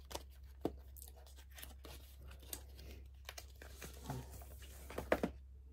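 An eyeshadow palette and its packaging being handled: a scattering of short clicks and rustles, with a couple of louder knocks about five seconds in.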